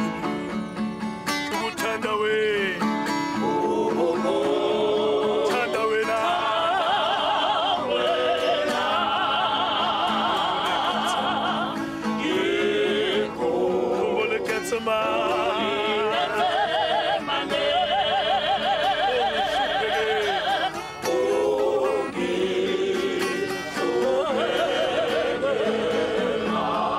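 A group of voices singing a slow hymn with strong vibrato, accompanied by acoustic guitar. The singing comes in long held phrases with short breaks about twelve and twenty-one seconds in.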